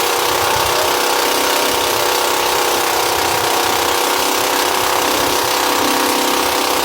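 Motorized fishing boat's engine running steadily, with wind and water rushing over it.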